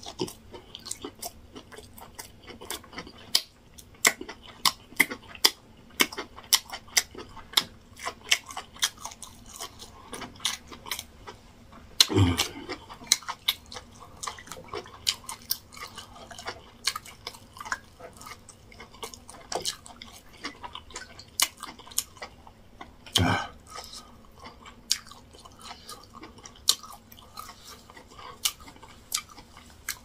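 Close-miked mouth sounds of a person eating yam fufu and egusi soup by hand: wet chewing with many small lip smacks and clicks. Two louder, deeper throat sounds come about twelve and twenty-three seconds in.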